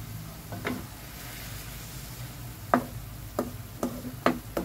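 A spatula stirring braising banana blossom in a large metal wok, knocking and scraping against the pan about five times in quick succession in the second half, over a low steady hum.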